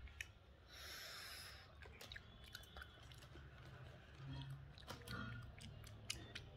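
Bubble gum being chewed, with soft wet mouth clicks, quiet, and a hissing breath about a second in.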